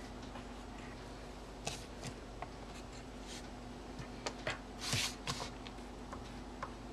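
Colored pencil scratching on paper in short strokes as letters are written, with a longer rustle about five seconds in.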